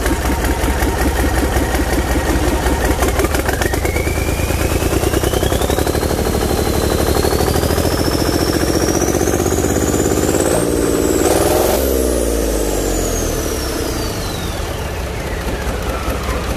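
Yamaha three-cylinder turbocharged 74 hp marine diesel revved up over several seconds, its turbocharger whistle climbing steadily in pitch. Just before twelve seconds in the revs drop and the turbo whistle glides back down as it spools down.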